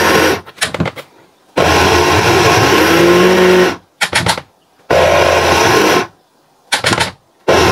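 Cosicosy electric grinder running in short pulses, grinding soaked rice into flour. A run of about two seconds, rising in pitch as it speeds up, is followed by a run of about a second, with short knocks between them.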